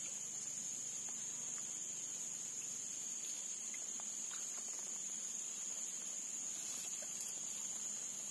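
Insects droning in a steady, unbroken high-pitched tone, with a few faint ticks.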